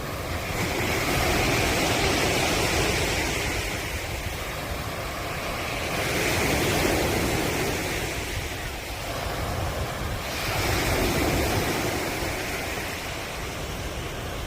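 Ocean waves breaking and washing on the shore, in slow swells about every four to five seconds.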